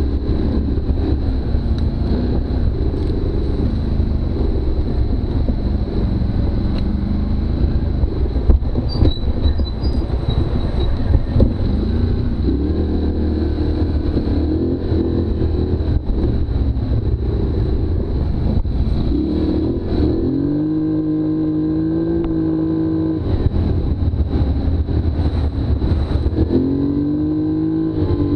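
Polaris Sportsman ATV engine running hard along a bumpy dirt trail, with knocks and rattles from the rough ground. About two-thirds of the way through, the engine note climbs and holds at a steady higher pitch as the quad speeds up, breaks off, then climbs and holds again near the end.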